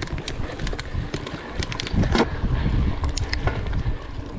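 Mountain bike riding fast over a dirt forest trail: wind rumbling on the microphone, with the bike rattling and knocking over bumps and a heavier jolt about two seconds in.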